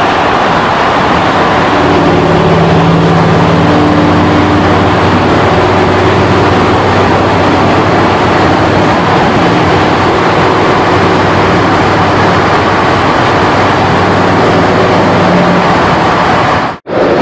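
BMW E38's 4.4-litre V8 through an Eisenmann exhaust, driven through a tunnel: a loud, steady exhaust drone at roughly constant revs over road and wind noise. The sound cuts out for a split second near the end.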